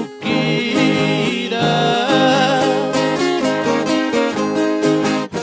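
Sertanejo duo singing a moda caipira in Portuguese over plucked string accompaniment. A long held sung note near the start gives way to the instruments carrying on.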